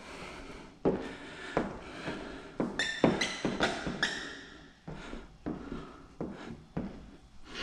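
Hand squeegee stroked over wet paint protection film on a car hood: a series of short squeaks and taps about every half second, with a brief high squeal about three seconds in.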